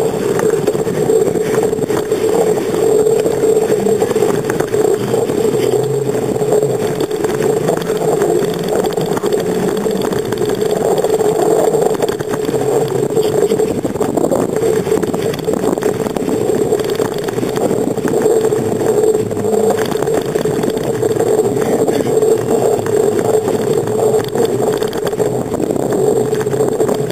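Loud, even noise of a bicycle ride picked up by a camera on the handlebars: wind on the microphone and road rumble, with no single event standing out.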